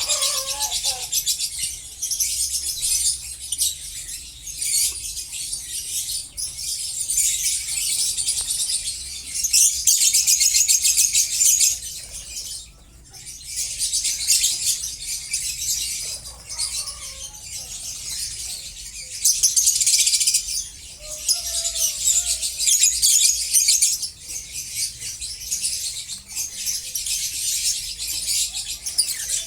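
A flock of caged lovebirds chattering together in a dense, high-pitched chorus that swells and fades, dropping away briefly about halfway through.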